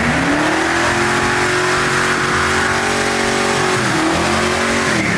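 Car engine revving up, held at high revs for several seconds with a brief dip, then dropping back near the end.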